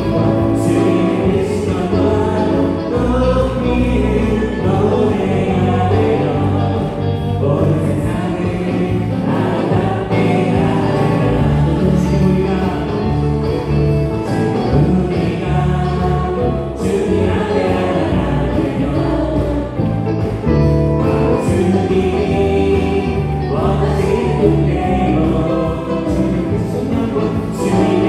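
A church praise band playing a worship song with a group of singers. A Yamaha Montage 8 keyboard, bass guitar and drums carry the song under the voices, at a steady, full level.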